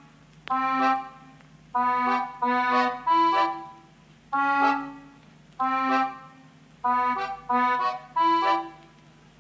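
Background music: short chord phrases, each fading away, about one a second with brief pauses between them.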